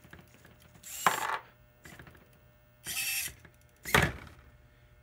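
Servo-driven robotic arm whirring in short bursts as its joints move, about a second in and again near three seconds. Just before the end comes a sharp knock, the loudest sound, as the gripper comes down onto the work surface.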